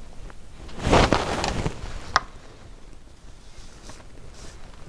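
A short rustling handling noise, about a second long, as hands shift their grip on the wooden model hull, followed by a single sharp click.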